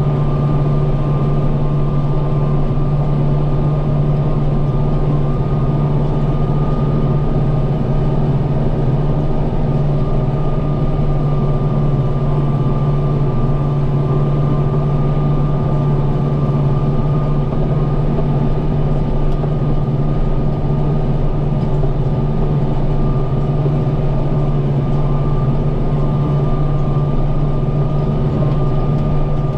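Farm tractor engine running steadily at working speed while pulling and powering a hay baler, with a steady high whine over the low engine drone.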